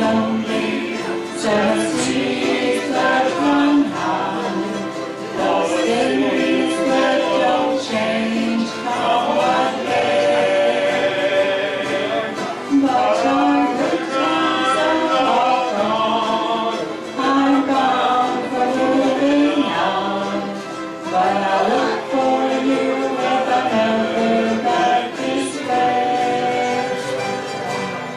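Live acoustic band playing an instrumental break between sung verses: a held melody line carried over the accompaniment.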